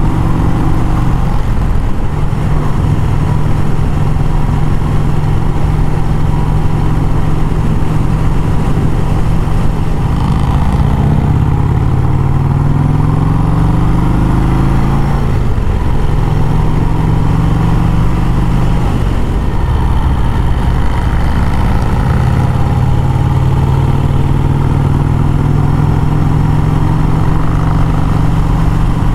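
1951 Vincent Rapide's 998 cc V-twin running at road speed, heard from the bike itself. The revs climb between about 10 and 15 seconds in, drop sharply, then hold steady again.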